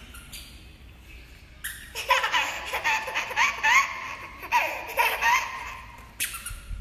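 A toddler laughing in a run of short, high squeals that begins about two seconds in.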